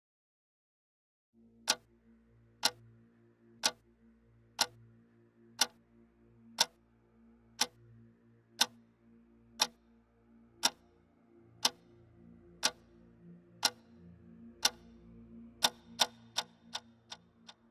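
Clock-like ticking: one sharp tick about every second, quickening to about three a second near the end, over a faint low held synth drone.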